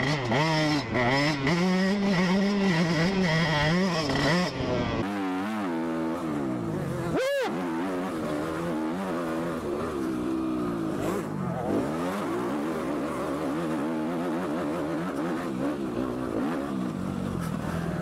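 Motocross bike engines revving up and down through the throttle and gear changes, heard from rider-mounted cameras. First comes the 2018 Husqvarna 125 TC two-stroke, then about five seconds in the sound switches to a second dirt bike. A short sharp knock comes about seven seconds in.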